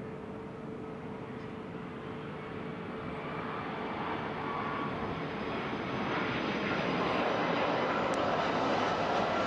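Jet engines of an Airbus A330 airliner on final approach, a steady rushing noise that grows steadily louder as the aircraft closes in over the last few seconds.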